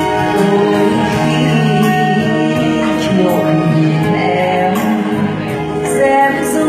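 A woman singing a Vietnamese song into a microphone, backed by a small live band with guitar.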